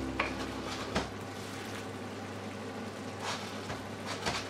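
Wooden spoon stirring a thick ground-meat and tomato-paste sauce as it simmers in a frying pan, a wet bubbling and squishing with a few knocks of the spoon against the pan.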